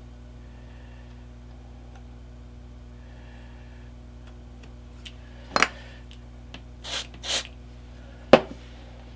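Handling of a small laser-cut wooden model frame on a work board: a sharp knock about halfway through, then two short hisses close together, then a sharp tap, over a steady low electrical hum.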